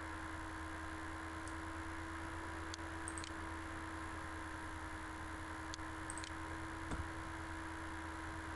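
Steady background hum and hiss of the recording setup, with a few faint, short mouse clicks, two of them in quick pairs, about three and about six seconds in.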